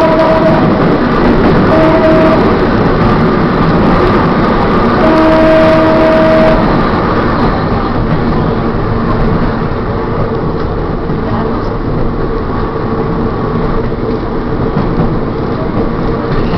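Electric trolley car running on rails in a tunnel, its wheels and motors making a steady loud noise, with its horn sounding: the tail of one blast at the start, a short blast about two seconds in, and a longer blast of about a second and a half around five seconds in. After the last blast the car leaves the tunnel and its running noise eases a little in the open air.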